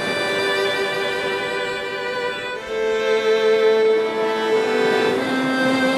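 Slow instrumental background music with long held notes, moving to a new chord about halfway through.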